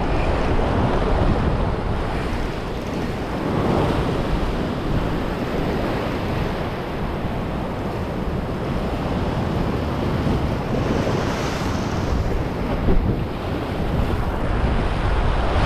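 Ocean surf surging and washing over a rock ledge, swelling and easing several times as the waves come in, with wind buffeting the microphone.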